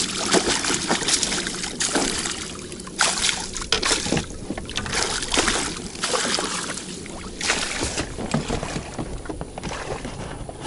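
Water splashing and sloshing in repeated surges as a hooked pike thrashes in a landing net held in the water beside an inflatable boat.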